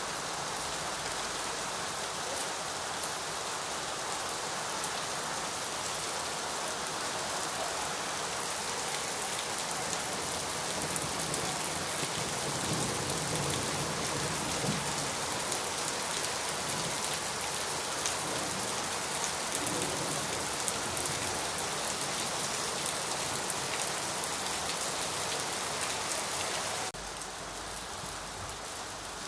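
Steady rain falling on surfaces, a dense patter of drops with a constant hiss. About 27 seconds in the sound abruptly becomes quieter, and the rain continues at the lower level.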